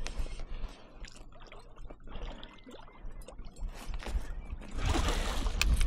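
Shallow water splashing and trickling, with scattered small clicks and knocks; the splashing grows louder and denser about five seconds in.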